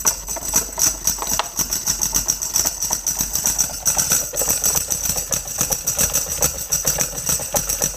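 A round plastic toy rattling and clattering without a break as a small dog noses and pushes it around over carpet.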